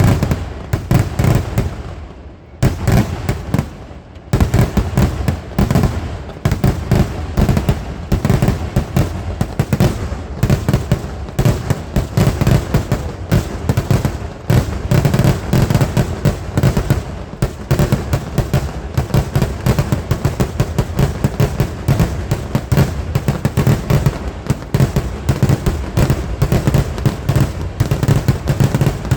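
A rapid, almost continuous barrage of firework explosions, many bangs overlapping, with brief lulls about two and four seconds in.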